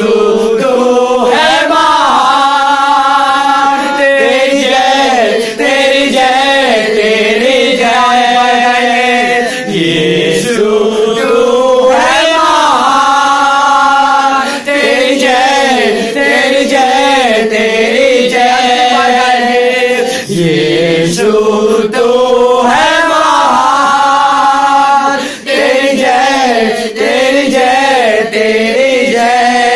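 A small group of voices singing a Hindi Christian worship song together, with long held notes.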